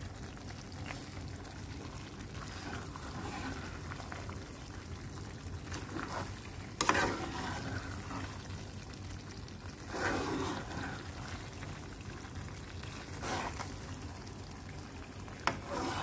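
Metal spoon stirring penne through a thick creamy sauce in a nonstick pot: quiet wet stirring with a few louder squelching scrapes, the loudest about seven seconds in, over a low steady hum.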